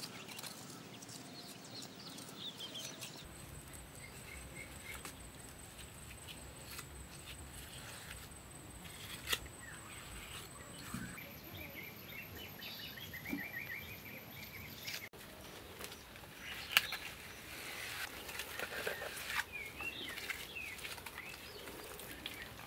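Birds chirping in short repeated notes over soft scraping and occasional sharp taps as wet mud is pressed and smoothed onto a stick-frame wall with a trowel.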